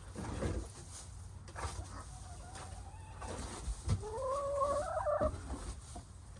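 Domestic hens clucking. A softer drawn-out call comes about two seconds in, then a louder, longer call, slightly rising in pitch, about four seconds in that lasts over a second.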